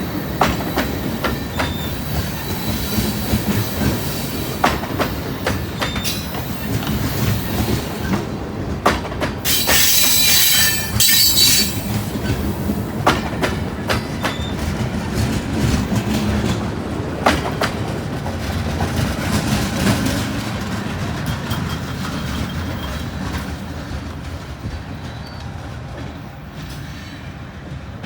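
Loaded freight cars of a rock train rolling past on the rails, wheels clicking over rail joints, with a loud, high wheel squeal for about two seconds around ten seconds in. The sound eases off near the end.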